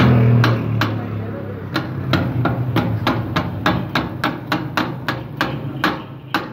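Metal griddle scraper chopping meat on a steel flat-top griddle: rhythmic metal-on-metal clacks, about three a second, that become steady from nearly two seconds in. A low engine hum fades out in the first half second.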